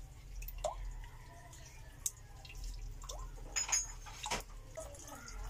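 Raw egg white dripping from the hands while an egg is separated by hand: soft wet drips and a few small clicks, the sharpest about two seconds in and between three and a half and four and a half seconds in.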